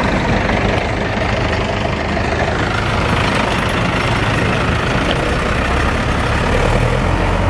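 Diesel tractor engines running steadily as the tractors drive slowly across a yard: first a blue New Holland, then a red Zetor.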